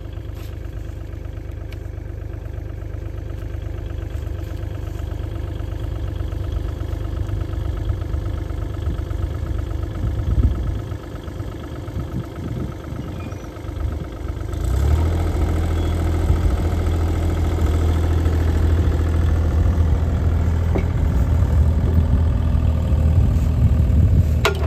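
Bobcat E35 mini excavator's diesel engine idling steadily, with a few irregular knocks about ten to fourteen seconds in. About fifteen seconds in it is throttled up and runs abruptly louder and steadier.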